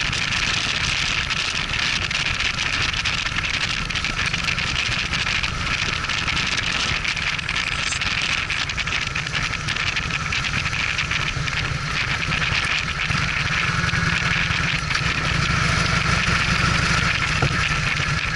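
Motorcycle riding at road speed: a steady rush of wind over the microphone, with the low drone of the engine beneath it. The engine grows a little louder near the end.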